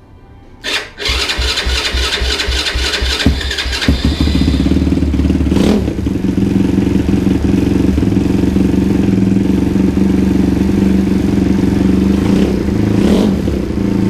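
Race lawn tractor's engine cranked over on its starter for about three seconds, catching about four seconds in and settling into a steady idle.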